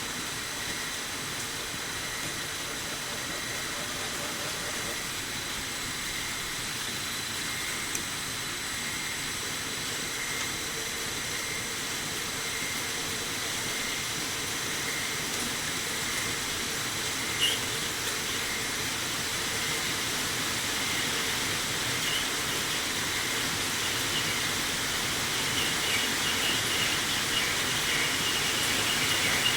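Metal lathe running with a ball-turning attachment, a steady hiss with a thin high whine, slowly growing louder. A single sharp click about halfway through.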